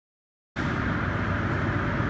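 Steady machinery noise that cuts in abruptly out of dead silence about half a second in and then runs on at an even level.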